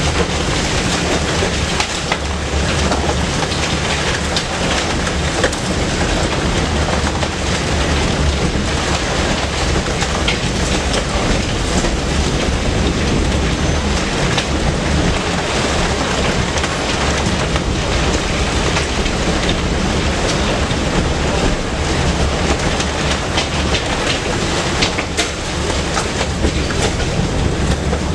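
Tram running along the track: a steady rumble of wheels on rails with a low hum, and a few sharp clicks as the wheels cross rail joints.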